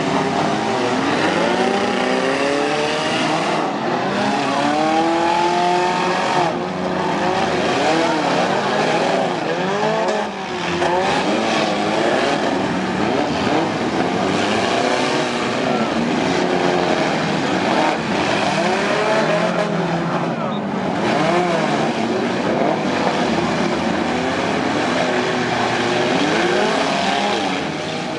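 Several demolition derby compact cars' engines revving hard at once, their pitches rising and falling over one another.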